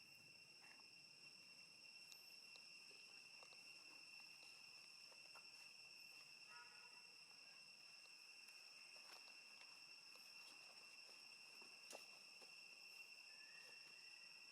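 Faint, steady, high-pitched drone of insects, unchanging throughout, with a few faint clicks.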